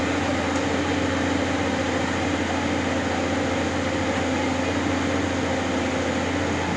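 Tata Hitachi 200 excavator's diesel engine running steadily, an even hum.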